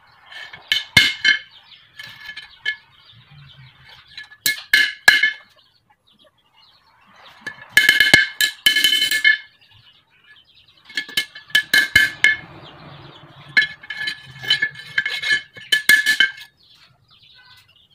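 Hammer blows on a steel tanto blade blank lying on an old brake drum used as an anvil. The blows come in quick clusters, each one ringing with a bright metallic clink, with the densest run in the middle and near the end.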